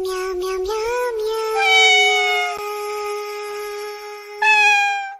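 A meow-like singing voice, as in a cat-voice song. It gives a few short notes, then holds one long note at a steady pitch, then a louder note near the end that cuts off suddenly.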